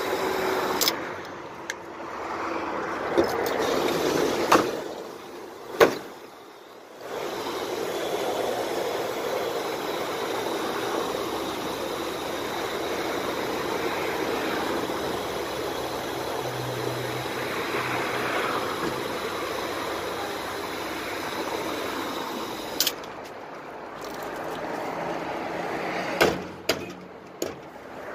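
Water gushing from a hose nozzle into large plastic water jugs as a steady rush that stops briefly about six seconds in. Several sharp knocks come through, mostly in the first six seconds and near the end.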